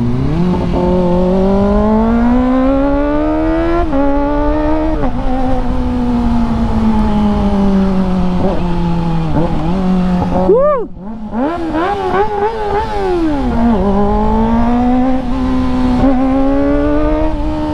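Kawasaki ZX25R's inline-four engine through an IXIL slip-on exhaust, running hard while riding: the pitch climbs and then drops back several times with gear changes, with a brief dip and sharp fall in pitch about ten seconds in before it climbs again.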